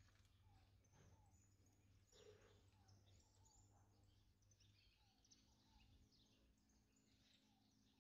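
Near silence: faint outdoor ambience with distant birds chirping repeatedly.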